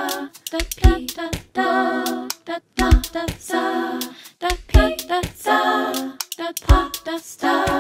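A cappella vocal music: several voices sing held chords in short phrases over sharp percussive clicks and a deep low thump about every two seconds.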